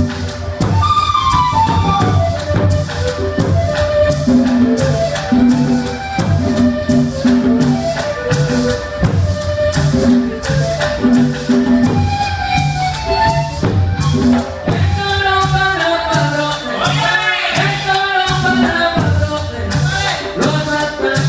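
Colombian gaita ensemble playing live: long cane gaita flutes carry a stepwise, falling melody over an even rhythm of hand drums, with a maraca shaking along.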